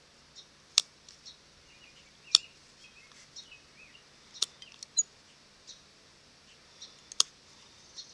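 Hand-held plier leather hole punch snapping through leather, about five sharp clicks at uneven gaps of one to two seconds, with smaller ticks of handling between them.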